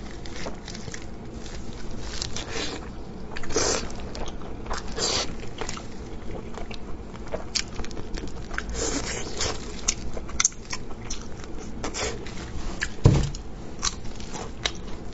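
Close-up eating sounds: teeth biting and tearing braised pork off the bone, with wet chewing and smacking in many short crackles, and the crinkle of disposable plastic gloves. One heavy thump near the end stands out as the loudest sound.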